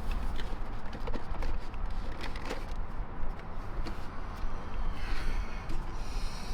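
Scattered small clicks and rustling of hands working under a car's dashboard, taking out the Phillips screws of the lower trim panel, over a steady low rumble.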